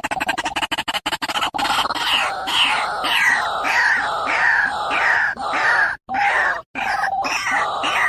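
White-breasted waterhen calling: a fast run of rattling pulses, then repeated harsh croaking notes, each falling in pitch, about two a second. The sound cuts out abruptly twice near the end.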